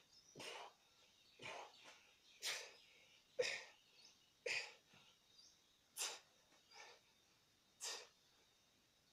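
A man's short, forceful breaths as he lifts and presses a barbell: about eight quick huffs, roughly one a second.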